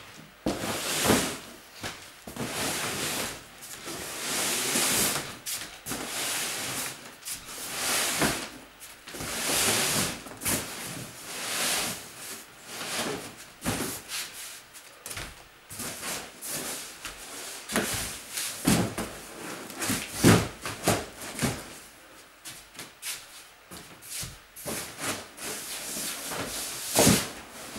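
Boxes being handled and shifted: a run of scraping and rustling sounds, each about a second long, with a few sharp knocks, from cardboard moving boxes and plastic storage crates being moved about. The loudest knocks come about two-thirds of the way in and again near the end.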